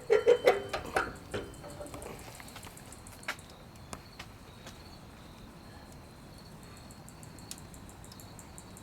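A quick run of loud metal clanks and rattles in the first two seconds as the door latch of a barrel wood-burning stove is worked, with a few lighter clicks after. Under it, crickets chirp steadily.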